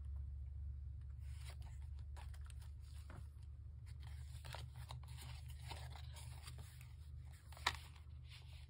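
Paper journal pages rustling as they are handled and turned, with a few soft taps and scrapes, over a steady low hum.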